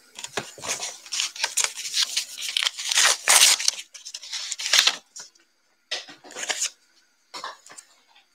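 Hands handling trading-card packaging: a dense run of rustling, scraping and ticking noises, loudest about three seconds in, then a few shorter rustles near the end.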